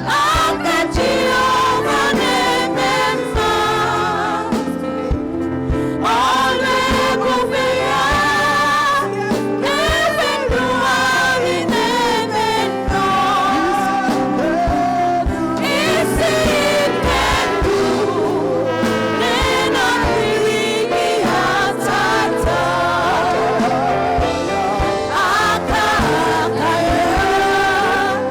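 Gospel music: a choir singing with instrumental backing and a steady beat.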